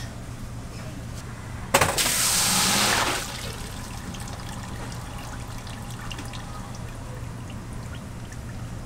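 Rice-washing machine dumping a load of washed rice and water from its hopper into a mesh-lined pot: a sharp click about two seconds in, then a loud gushing rush lasting about a second and a half. A steady low hum runs underneath.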